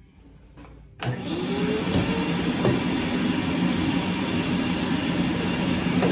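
A vacuum motor switches on abruptly about a second in, its whine rising as it spins up, then runs steadily with a loud rushing sound.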